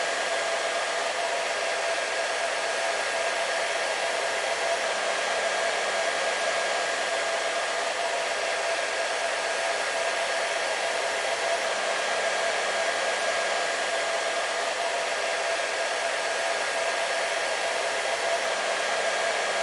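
Hair dryer running continuously on a steady setting: an even, unchanging rush of air with a constant motor whine, played as white noise for sleep.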